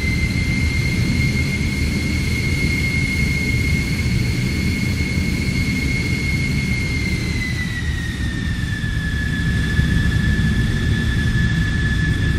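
Steady high-pitched jet-like engine whine over a constant low rumble, its pitch settling a little lower about eight seconds in.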